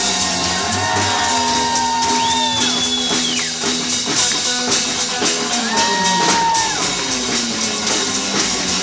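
Live rockabilly band playing an instrumental break on drums, upright bass and electric guitar. High notes swoop up, hold for about a second and slide back down, several times over the beat.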